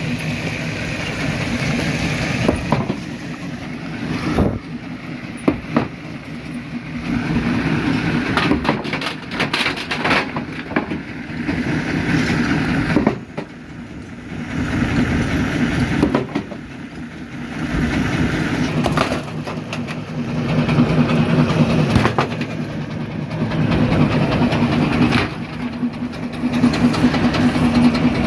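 Primary jaw crusher at work: a steady low machine hum under many sharp cracks and knocks of rock breaking in the jaws. The crushing swells and eases every few seconds.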